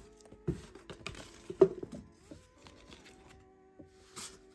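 Short rustles and light taps of hands handling a fabric dust bag and packaging, the loudest a sharp tap about a second and a half in. Soft background music with held notes runs underneath.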